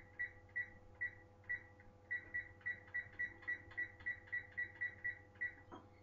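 Electric oven's control-panel keypad beeping with each button press as the cook time is entered: a string of short, high beeps, a few slow ones at first, then about five a second.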